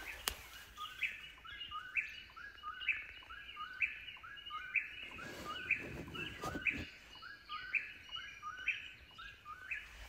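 Eastern whip-poor-will singing its song, the same short phrase repeated over and over at about one a second.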